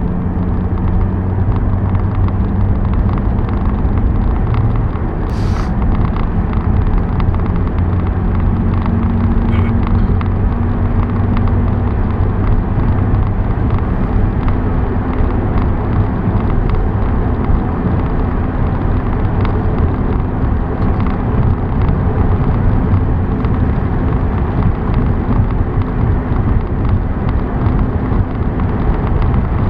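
Car travelling at highway speed: steady engine hum and road rumble, with one brief sharp click about five seconds in.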